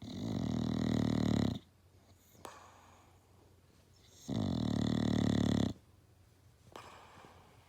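English Bulldog snoring loudly in its sleep: two long snores, each about a second and a half, some four seconds apart.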